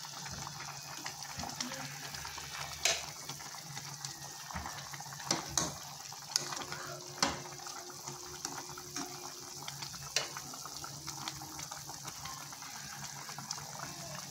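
Pork and vegetable soup boiling in a pot, a steady bubbling hiss, while a metal ladle stirs it, with a handful of sharp knocks of the ladle against the pot.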